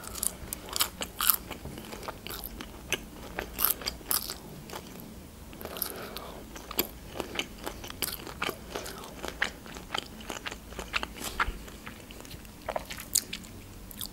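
Close-miked chewing: many wet clicks and smacks of a mouth chewing food.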